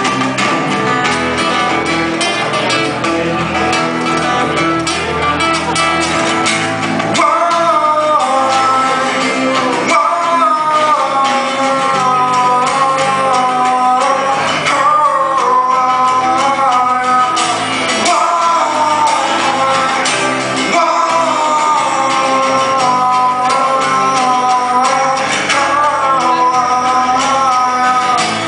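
Live band playing: two acoustic guitars strummed over an electric bass. A man starts singing about seven seconds in.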